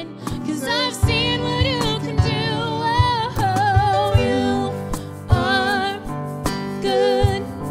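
Worship song: a singer holding long notes with vibrato over a band, with regular drum hits.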